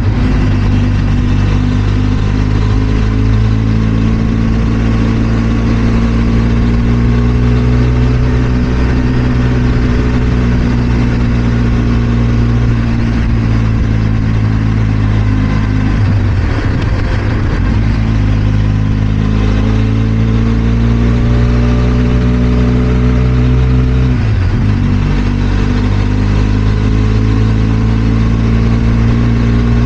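Benelli TRK 502 X's parallel-twin engine running steadily under way, its pitch drifting slowly. The revs dip briefly and pick up again about halfway through and again about three quarters of the way in.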